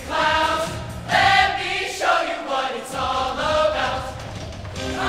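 Large mixed show choir singing together in performance, with the bass dropping out for about a second midway before returning.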